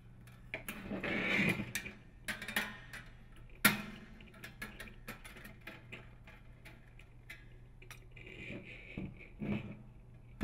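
A quarter-inch nut driver turning hex-head screws into a sheet-metal heater cover: scattered small clicks and ticks of tool on metal, with a sharp knock a little under four seconds in. Near the end, scraping and handling of the sheet-metal heater housing.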